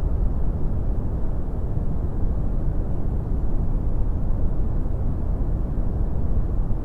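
Brown noise: a steady, deep rushing hiss, strongest in the low end and dull above, with no changes or events.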